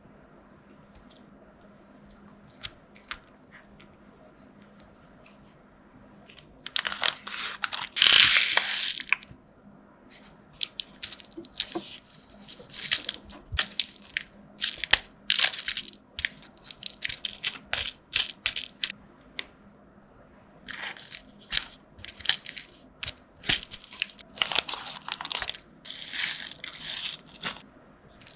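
Paper or plastic wrapping being crinkled and torn by hand in irregular crackly bursts with small clicks. The longest, loudest rustle comes about seven to nine seconds in.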